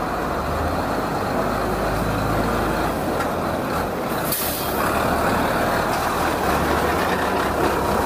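Diesel engine of a DAF CF concrete mixer truck running steadily as the truck drives slowly past, with a short air hiss, typical of an air brake, about four and a half seconds in.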